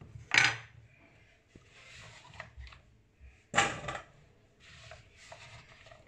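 Diced zucchini being scooped by hand off a wooden cutting board, with soft scraping and rustling and two louder clatters about three seconds apart.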